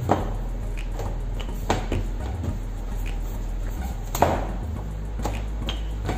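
Wooden rolling pin rolling out noodle dough on a stainless steel worktop, with several sharp knocks of the pin against the steel, the loudest a little after four seconds in.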